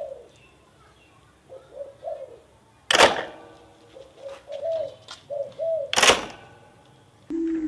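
Pigeon cooing in short notes that rise and fall, with two loud sharp knocks about three seconds apart. Near the end the sound cuts to a lower-pitched coo.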